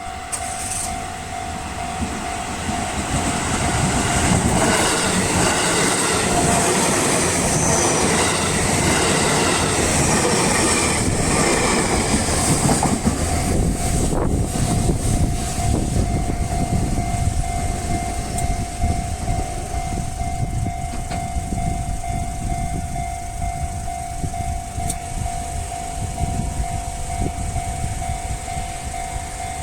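Japanese level-crossing warning bell ringing steadily while a train rumbles and clatters over the crossing for the first dozen seconds or so. After the train has gone by, the bell keeps ringing over fainter rail noise.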